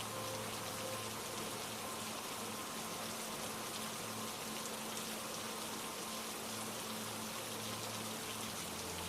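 Steady rain falling, with a soft held low musical drone underneath that shifts to a lower note near the end.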